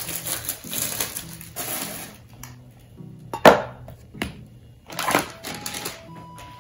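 Plastic shopping bag and packaging crinkling and rustling in bursts as goods are handled and taken out, with one louder knock about halfway through as an item is set down. Soft background music underneath.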